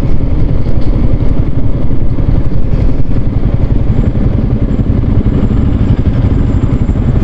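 Yamaha R15 V3's single-cylinder engine running as the motorcycle slows down, with road noise, heard from the rider's seat.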